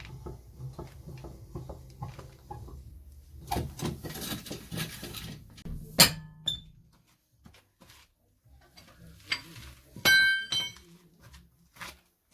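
Metal clinks and clatter of tools and wheel bolts as a car's rear wheel is taken off, with a sharp knock about six seconds in and a ringing metallic clink about ten seconds in.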